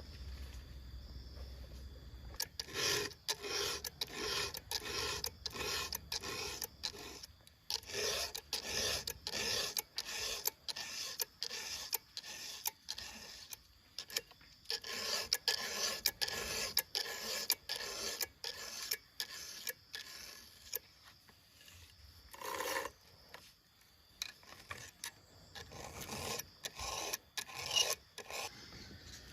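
Hand saw rasping through wood in steady back-and-forth strokes, about two a second, with short breaks between runs of strokes.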